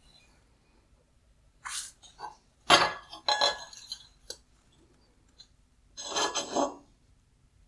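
Disassembled headlight parts, hard plastic and metal pieces, clinking and clattering as they are handled and set down, in a few short bursts.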